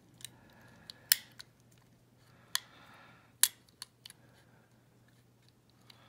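Irregular sharp metal clicks and faint scraping from a pick and tension wrench working the levers inside an old steel two-lever Belfry padlock, the loudest clicks about a second in and about three and a half seconds in.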